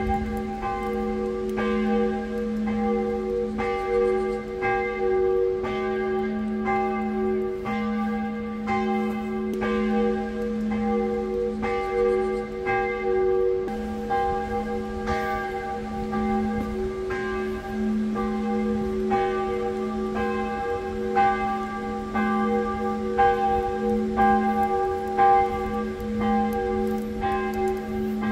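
Church bells ringing, struck over and over about every half second to second, each stroke ringing on and overlapping the next.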